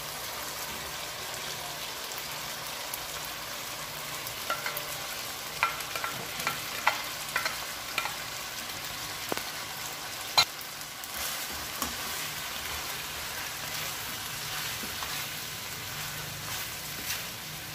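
Cooked rice, squid and shrimp sizzling in a sauce in a nonstick wok as the rice is tipped in and stirred. A run of light clinks comes from about four to eight seconds in, then one sharper knock about ten seconds in.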